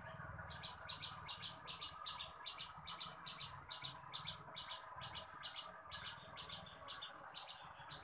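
A small bird chirping over and over, faintly: short, high, doubled notes about three times a second.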